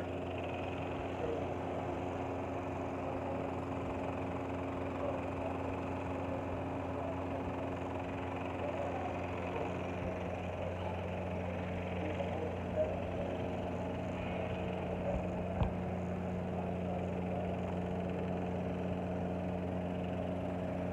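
Steady mechanical hum of a motor running, several unchanging low tones with a light hiss over them. Two faint knocks come in the second half.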